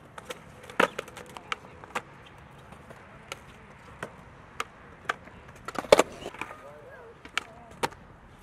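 Skateboards on concrete: sharp clacks of boards popping and wheels landing, scattered one by one, with the loudest cluster of impacts about six seconds in.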